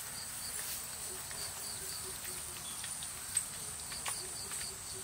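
Insects chirring: a steady high-pitched drone with rows of short, evenly repeated chirps. A few light clicks are scattered through it, one sharper about three and a half seconds in.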